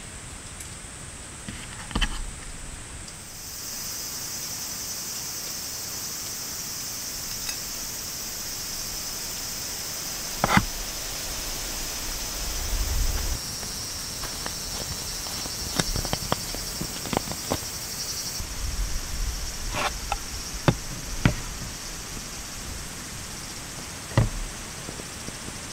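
Insects giving a steady high-pitched buzz that starts about three seconds in and stops about two-thirds of the way through. Over it come scattered light clicks and knocks as food and a metal pan are handled on a table.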